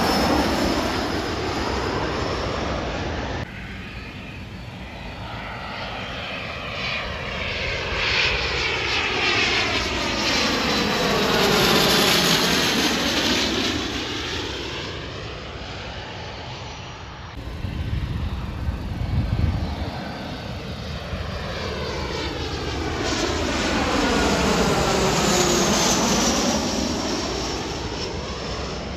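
Jet aircraft passing low overhead one after another on approach with gear down. First a Bombardier CRJ regional jet fading away, then a small business jet, then a larger business jet. Each one's engine noise swells to a peak and fades with a sweeping, phasing hiss as it goes by, and the sound cuts abruptly twice between aircraft.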